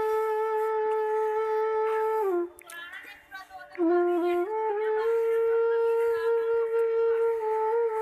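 Background music: a woodwind melody of long held notes, breaking off briefly about three seconds in before carrying on.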